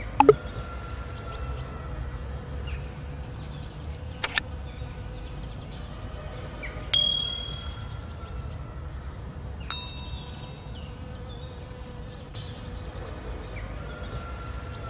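Like-and-subscribe animation sound effects: sharp tap clicks near the start, about four seconds in and near ten seconds, and a bright notification-bell ding about seven seconds in. Under them runs a steady background with faint chirping insects.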